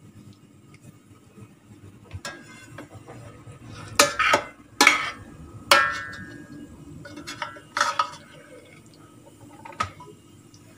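A metal spoon knocking and scraping against a stainless steel pot while scooping out thick sauce: about seven clinks, the loudest a cluster between four and six seconds in, one leaving a brief metallic ring.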